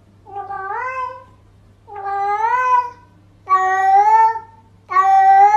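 Domestic cat meowing four times in a row, each drawn-out call about a second long and bending slightly up in pitch, spaced about a second and a half apart.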